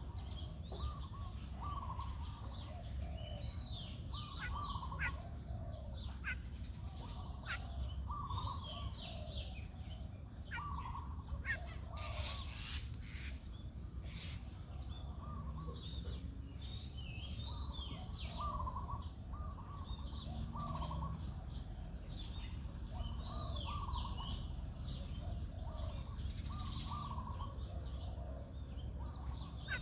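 Several wild birds chirping and calling, with one short call phrase repeated again and again, over a steady low background rumble.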